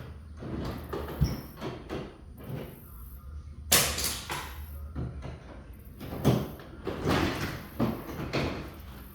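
Metal knocks, clanks and rattling from work on a sectional garage door's hinges and rollers, a string of separate impacts with the sharpest one a little under four seconds in.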